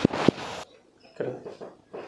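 Two sharp joint cracks about a third of a second apart during a chiropractic spinal manipulation, followed by faint low sounds.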